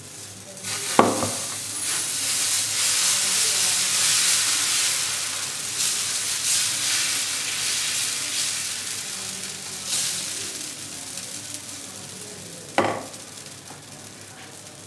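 Dosa batter sizzling on a hot pan as it is ladled on and spread. A loud hiss starts with a sharp knock about a second in and slowly dies down, and there is another sharp knock near the end.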